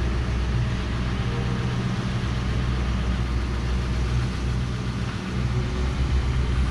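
GMC pickup truck driving, heard from inside the cab: a steady low engine hum with road noise.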